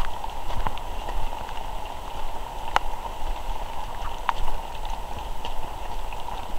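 Footsteps of people walking on a wet, muddy forest path, uneven and irregular, with scattered sharp clicks over a steady hiss.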